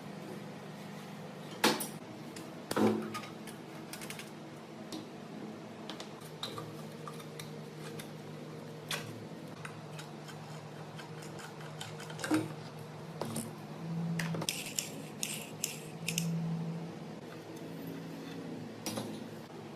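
Metal parts clinking and knocking as they are handled during work on the machine: scattered light clicks with a few sharper strikes, and a busier run of clinks about three quarters of the way through, over a faint steady hum.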